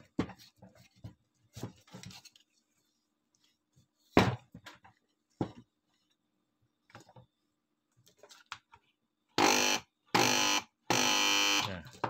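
Washing-machine spin-dryer motor switched on in three short spells near the end, each a loud buzz; its end housing is not yet bolted on. Before that, scattered knocks and clicks of the motor being handled, with one sharp knock about four seconds in.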